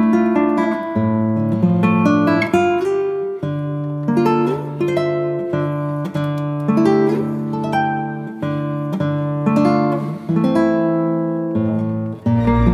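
Background music: a plucked acoustic guitar playing a melody of quickly fading notes, which changes to a fuller passage with a low bass just before the end.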